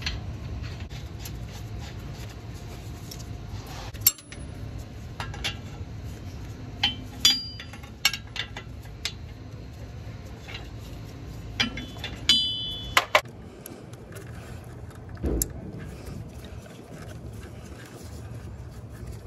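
A wrench and socket clinking against metal as a new oxygen sensor is threaded into the exhaust and tightened: scattered sharp clicks and clinks, some with a brief metallic ring, a quick cluster of them about two-thirds of the way through, and a dull thump after that.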